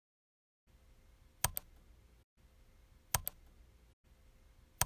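Three faint double clicks, evenly spaced about a second and a half apart, over faint hiss.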